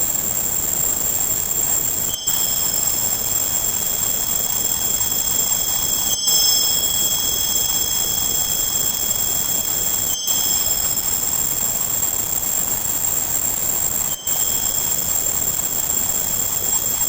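Tinnitus-masking sound: a steady hiss of noise with several thin, high-pitched steady tones layered over it. It loops about every four seconds, with a brief dip at each seam.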